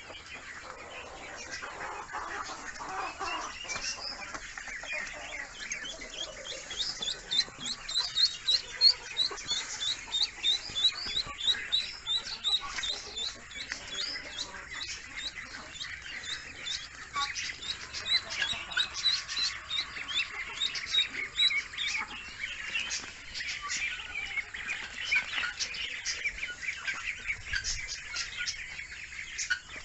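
Muscovy ducklings peeping in rapid strings of short high notes, busiest through the middle, with other farm poultry calling around them.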